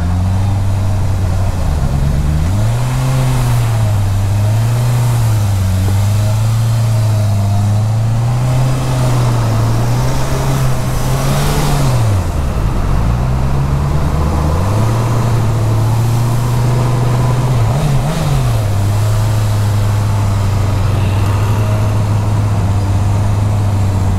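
Honda CB650R's inline-four engine running under way, its pitch rising and falling with the throttle. It drops low about halfway through, then picks up again, with two quick blips about three quarters of the way in.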